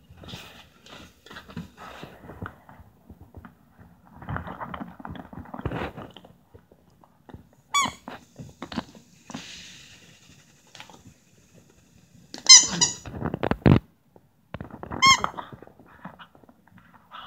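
Dalmatian puppy chewing and shaking a squeaky plush toy, squeezing out three short bursts of squeaks, the loudest about two thirds of the way through, with scuffling and soft thumps of play in between.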